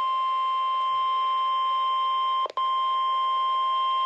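NOAA Weather Radio 1050 Hz warning alarm tone, one steady pitch with a brief dropout about two and a half seconds in. This attention tone signals that a warning message follows.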